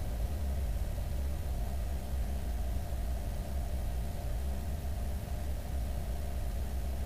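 Steady drone of a single-engine propeller airplane's engine and propeller, heard inside the cabin as an even low hum that does not change.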